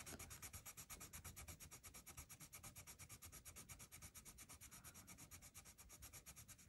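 Colored pencil scribbling quickly back and forth on paper, about ten strokes a second, faint and very even, as colors are blended in a test swatch.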